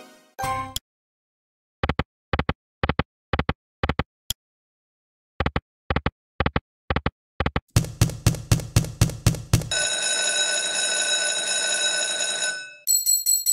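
Online slot game sound effects from Novomatic's Book of Ra Magic during free spins. First come two runs of short clicks, about two a second, as the reels spin and stop. Then a faster run of pulses, a held chiming tone, and near the end a rapid, high jingling chime.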